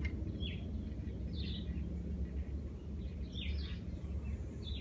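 A bird chirping in short downward-sweeping calls, a few times, over a steady low outdoor rumble.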